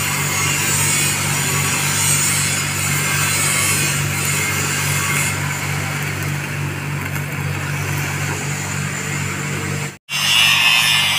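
Stick (shielded metal arc) welding the root pass on a steel pipe joint: a steady crackling, sputtering hiss from the arc over a constant low engine hum. About ten seconds in it cuts off abruptly and an angle grinder takes over, grinding the finished root.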